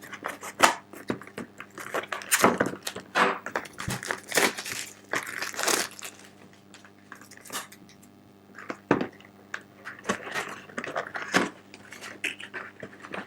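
Product packaging being handled and opened by hand: irregular crinkling and rustling with scattered clicks and scrapes.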